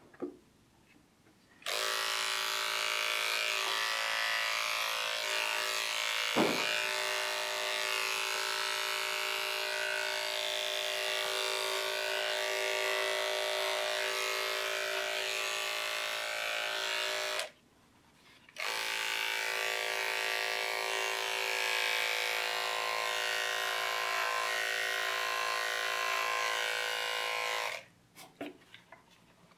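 Electric dog grooming clipper running with a steady buzz while shaving down a dog's leg and foot. It cuts out for about a second midway, then runs again and stops near the end, with a brief click about six seconds in.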